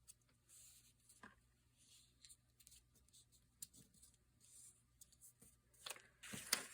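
Faint paper handling: light taps and brief rustles as paper is lined up and creased by hand, with a louder rustle of paper near the end.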